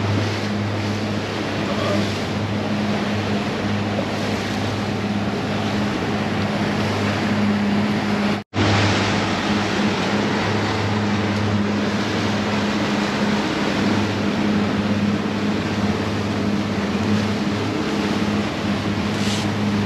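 Twin outboard motors running steadily at trolling speed, a constant low drone mixed with the rush of the boat's wake and wind. The sound cuts out for a moment about eight seconds in.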